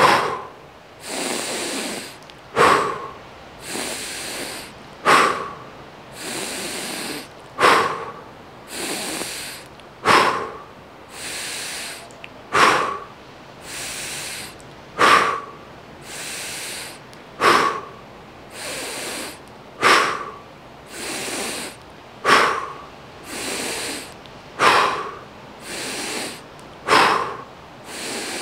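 A man breathing deeply and rhythmically close to a clip-on microphone, at about one full breath every two and a half seconds. Each breath is a drawn-out inhale through the nose followed by a short, forceful exhale through the mouth.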